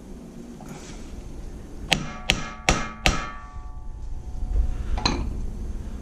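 Hammer blows on metal, pounding an 80cc bicycle-engine clutch assembly onto its new ball bearings through a pipe adapter. There are four quick strikes about 0.4 s apart, each ringing briefly, and a fainter knock near the end.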